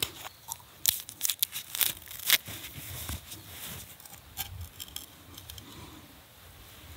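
Steel knife blade scraping in short, sharp strokes that come at irregular intervals, with small crackles in between. The strokes are denser in the first half and sparse and faint toward the end.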